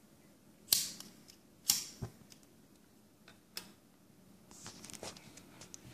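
A few sharp clicks spread over the first few seconds, then a run of fainter small clicks and taps near the end: a lighter being struck to light the denatured-alcohol burner of a small Stirling hot air engine.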